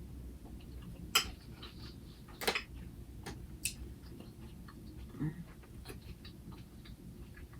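Close-up chewing of raw salad: scattered crunchy, wet mouth clicks, with the sharpest crunches about one and two and a half seconds in. A short low hum about five seconds in.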